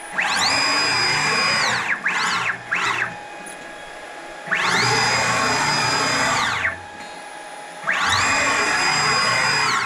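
Stepper motors of a China 6040 CNC router whining through rapid traverses of the gantry at full speed. There are three long moves and two short ones. In each, the whine rises in pitch as the axis speeds up, holds steady, and falls as it slows to a stop.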